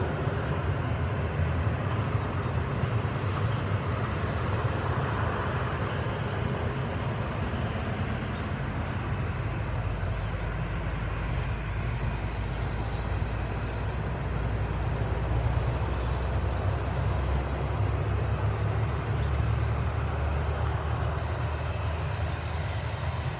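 Boeing 737-800's CFM56 jet engines running at low power, a steady low rumble with a rushing hiss above it.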